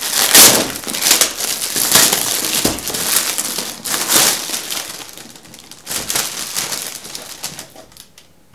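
Gift-wrapping paper being torn and crumpled as a present is unwrapped, a dense crackling rustle that is loudest in the first half and softer later, with a fresh burst about six seconds in.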